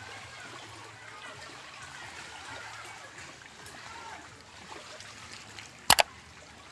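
Gentle lapping and trickling of shallow sea water at the shoreline, a steady wash. About six seconds in comes a quick double click, the mouse-click effect of an on-screen subscribe button.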